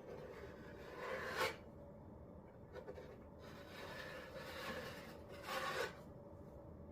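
Wet Henry Feather Finish cement being spread and scraped over a tabletop with a blade in a few rasping strokes. The loudest strokes come about a second and a half in and near the end.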